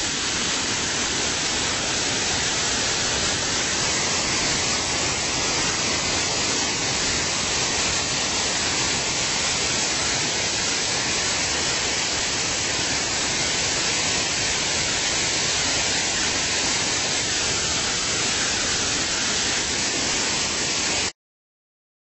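Waterfall in flood after a typhoon's heavy rain: a steady rush of water pouring over the falls and churning in the pool below. It stops abruptly near the end.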